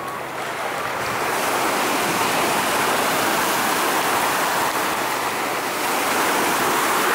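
Small waves breaking and washing in the shallows: a steady rush of surf that swells slightly about a second in.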